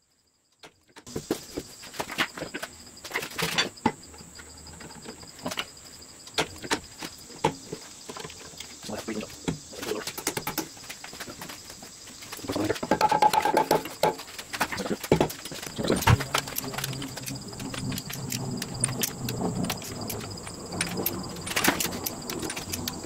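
Irregular metallic clicks, clinks and knocks of hand tools and parts at work on a Jaguar 2.4-litre twin-cam straight-six engine during reassembly, with a busier, louder stretch about halfway through.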